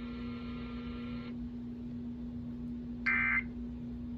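EAS end-of-message signal: a short burst of SAME data tones about three seconds in, the first of the three repeated end-of-message bursts that close an emergency alert test. A steady low hum lies underneath.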